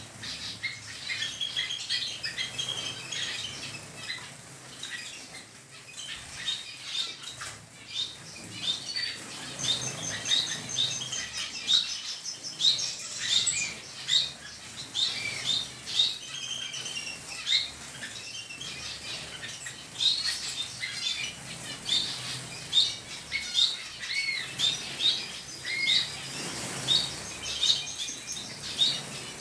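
A flock of small aviary birds, canaries and finches, chirping and twittering together in a dense, overlapping chorus of short high calls, with wings fluttering as they move about.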